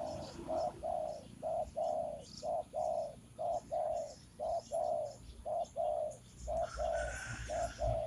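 A wild dove cooing: a long run of short, same-pitched coos in quick pairs and threes, about two to three a second. Near the end a higher, fainter sound and a low rumble join in.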